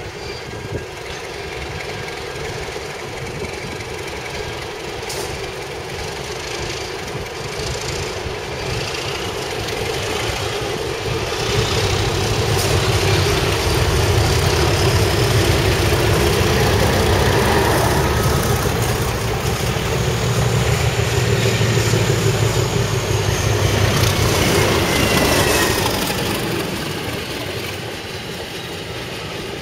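Two diesel locomotives, a Class 31 leading and a Class 37 on the rear, hauling a test train past on light power. The engine sound builds from about ten seconds in, is loudest as the locomotives and coaches pass, and fades near the end.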